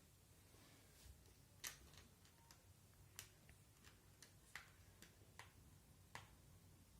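Faint, scattered clicks of small plastic LEGO pieces being handled and pressed together, about ten in all at irregular intervals.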